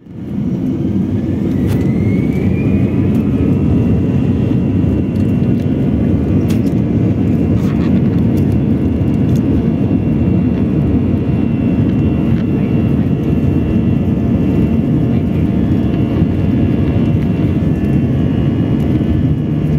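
Jet engines of a Vietjet airliner at takeoff power, heard from inside the cabin: a loud steady rumble with a whine that rises in pitch over the first few seconds and then holds. The uploader calls the engine sound on this takeoff unusual.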